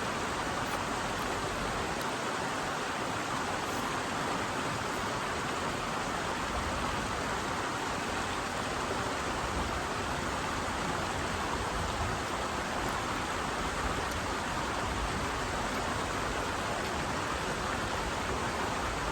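Mountain river flowing: a steady rush of water.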